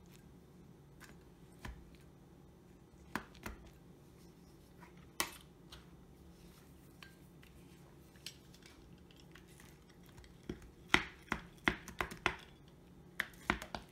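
Knife and spatula cutting through a casserole in a foil pan, scattered clicks and scrapes of the utensils on the foil and pan. Near the end the strokes come as a quick run of sharp clicks.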